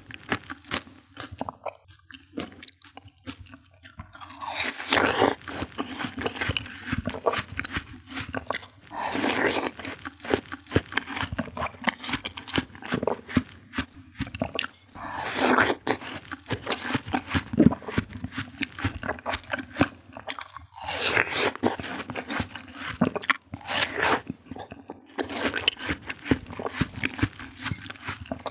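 Close-miked biting and chewing of juicy fruit (mangosteen and watermelon): constant wet clicks of chewing, with a louder crunchy bite about every five seconds.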